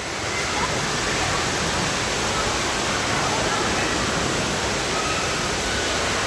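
Steady rushing, splashing water and the echoing din of an indoor water park, with faint distant voices mixed in.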